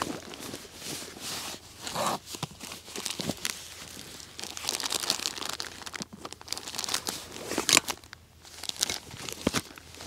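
Rustling of a canvas backpack being opened and unpacked by hand, with a plastic bag crinkling. A few sharp clicks come through it, the loudest about three-quarters of the way in.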